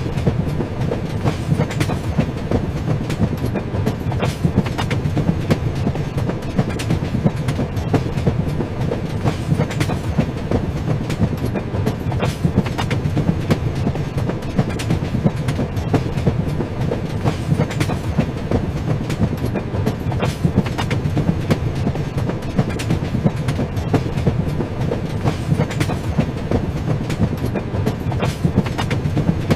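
A train running steadily along the track: a constant low rumble of the wheels and carriages, with frequent small clicks and rattles from wheels on the rails.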